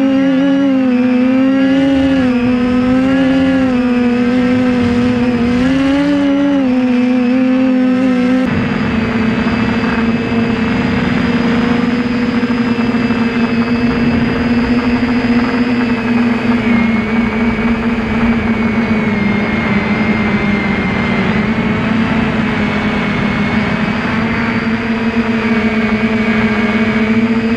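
TBS Discovery Pro quadcopter's electric motors and propellers buzzing. The pitch dips and rises repeatedly for the first eight seconds or so, then settles to a steady buzz with more rushing air noise under it.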